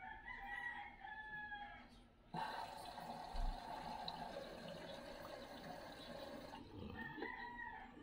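Water rushing and sloshing in a front-loading inverter direct-drive washing machine as it fills and begins its wash, starting abruptly a couple of seconds in and cutting off about two-thirds of the way through. A long pitched animal call sounds at the start and again near the end.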